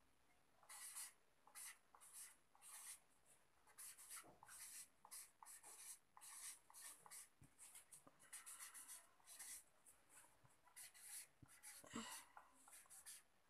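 Faint handwriting: an irregular run of short strokes of a pen or marker on a writing surface, with brief pauses between words.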